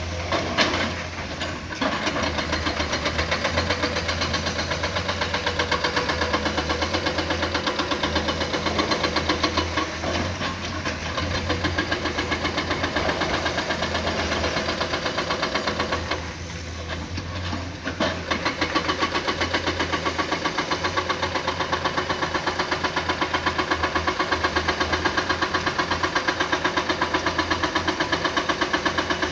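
Excavator's diesel engine running with a steady, rhythmic throb; it eases off for about two seconds around the middle, then picks up again.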